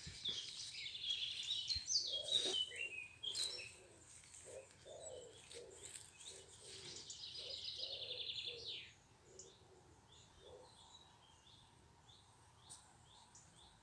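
Garden songbirds singing: high chirps and phrases at first, then one long rapid trill from about six to nine seconds in, with fainter short low notes repeating underneath.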